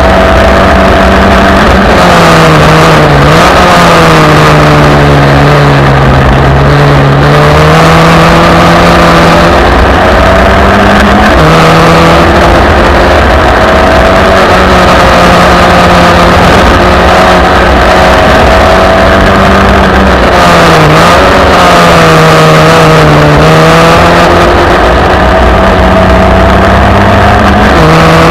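1971 Merlyn Mk20 Formula Ford's Ford Kent 1600 engine racing hard. Its pitch sags and climbs several times as the car brakes and accelerates through corners, with sudden jumps in pitch at gear changes.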